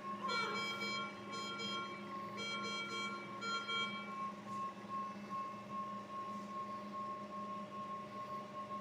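Alarm on a baby's ventilator: groups of short electronic alarm tones sound for about the first four seconds, then stop. A steady high tone and a low machine hum continue underneath.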